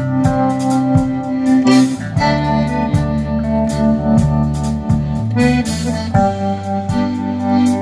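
Live band playing an instrumental passage: a button accordion's sustained chords over electric guitar, bass guitar and a steady drum beat.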